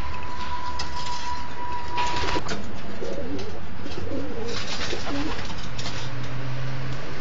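Racing pigeons cooing in a loft: a run of wavering low coos from about three seconds in. Before them a steady high tone sounds and cuts off about two and a half seconds in.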